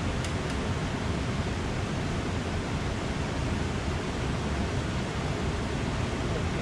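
Steady rushing of a wide, fast-flowing river, its noise even and weighted to the low end.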